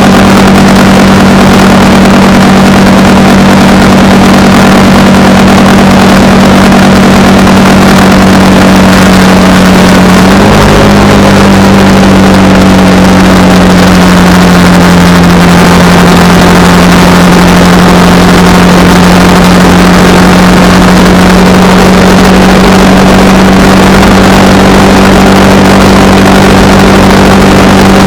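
Honda Rebel 300's single-cylinder engine running at a steady, even note while riding, with a brief jump in engine pitch about ten seconds in before it settles again.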